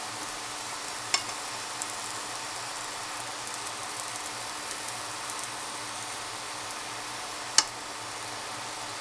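Pecan pancake sizzling in oil in a nonstick frying pan, a steady hiss, with a spatula knocking against the pan twice: about a second in and, louder, near the end.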